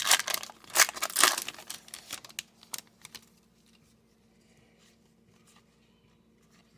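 Plastic trading-card pack wrapper being torn open and crinkled by hand: a quick run of rips and rustles that stops about three seconds in.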